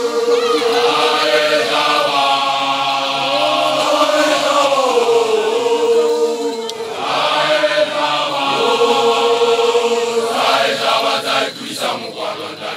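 A group of male voices chanting in unison: a Basotho initiates' (makoloane) song of long held notes in phrases a few seconds long with short breaks between them, turning choppier near the end.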